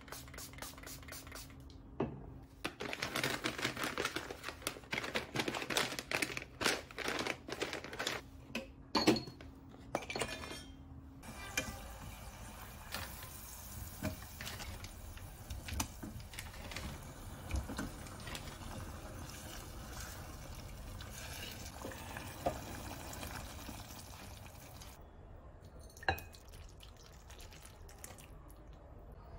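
Kitchen cooking sounds: dense clattering over a low steady hum for about the first eleven seconds, stopping suddenly. Then a steady hiss with scattered clinks and knocks of utensils against a saucepan, with a sharper knock near the end.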